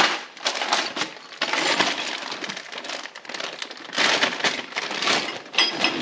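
Plastic parts bags crinkling and rustling as they are handled and opened.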